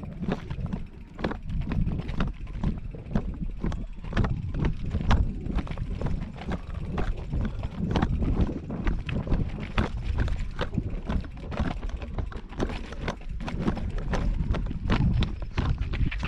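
Mountain bike rolling down a stone-paved path: a continuous low rumble with frequent irregular clacks and knocks as the tyres bump over the paving stones and the bike rattles.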